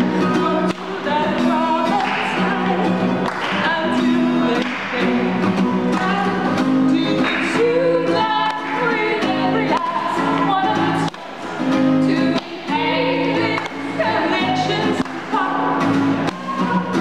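Live folk song: women's voices singing together over a strummed acoustic guitar.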